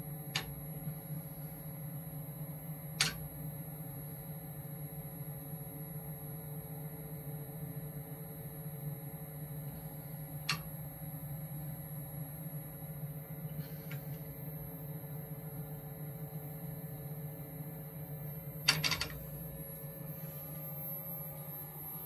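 Exhaust blower motor running with a steady hum while air is drawn through the ducting. A few short sharp clicks break in, the loudest a cluster about 19 seconds in.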